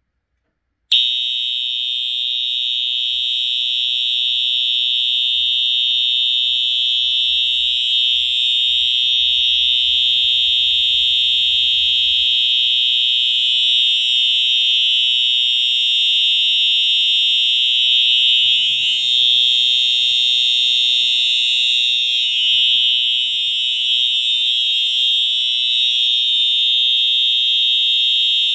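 The electronic horn of a Space Age A32-HA24D fire alarm horn strobe, switched on about a second in and sounding one continuous, steady, high-pitched tone.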